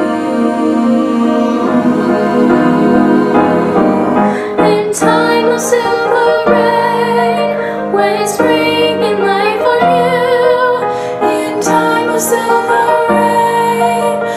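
High school choir singing with piano: a held chord for the first few seconds, then from about four seconds in a female voice sings a melody with vibrato over the piano.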